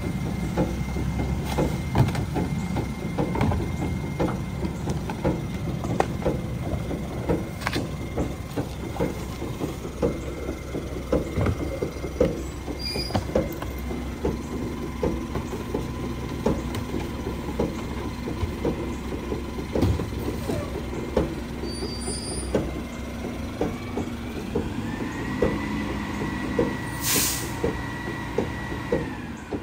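Mack MRU rear-loader garbage truck idling, with knocks and bangs as plastic carts are tipped into the rear hopper. A steady whine starts about halfway and climbs in pitch later on, and a short air-brake hiss comes near the end.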